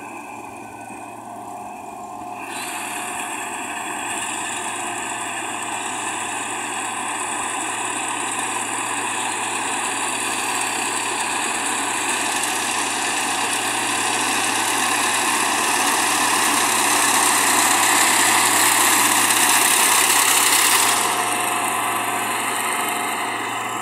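Rice combine harvester running steadily as it cuts standing rice, a continuous mechanical noise that grows louder as the machine comes closer. It drops off sharply about twenty-one seconds in.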